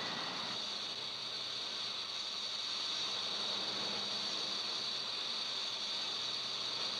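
Steady hiss, strongest high up, with a faint low hum beneath and no change in level; a thin high tone left over from before fades out in the first half-second.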